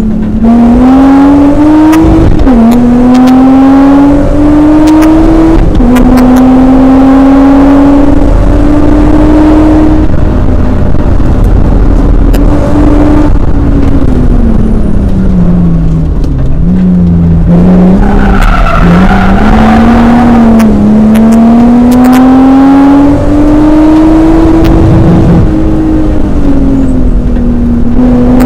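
BMW E36 track car's M54B30 3.0-litre inline-six engine at hard throttle, heard from inside the cabin: the note climbs and drops sharply at each upshift, falls low with a few short rises about halfway as the car slows for a corner, then climbs through the gears again.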